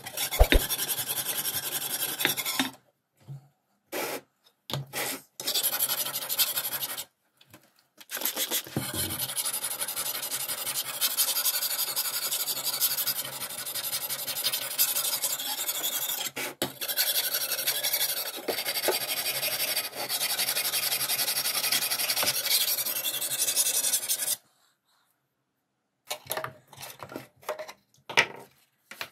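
Steel machete blade stroked back and forth on a sharpening stone, a steady scraping rasp in spells with short pauses, then one long run that stops about 24 seconds in. A few light clicks and taps follow near the end as a metal tin's lid is handled.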